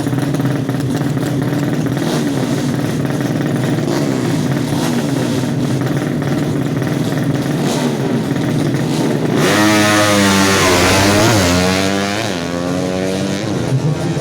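Tuned 200cc four-stroke drag-bike engines running steadily at the line, then about nine seconds in going to full throttle much louder, the pitch climbing and dropping several times as the revs rise and fall through the gears.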